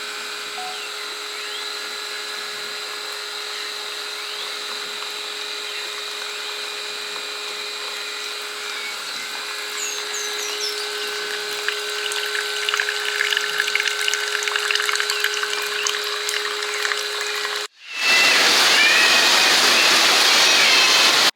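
A small electric motor runs steadily with a constant whine. About three-quarters of the way through it cuts off abruptly and is replaced by loud, steady rushing water.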